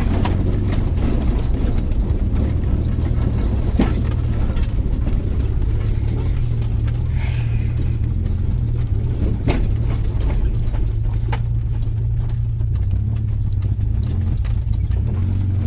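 Car driving, a steady low engine and road rumble. A few sharp knocks come through about 4, 9 and 11 seconds in.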